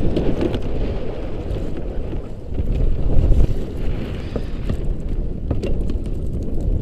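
Wind buffeting the microphone over lapping water, while a net shrimp trap is hauled up out of the lake, water splashing and dripping off it; the loudest surge comes about three seconds in. A few light knocks near the end.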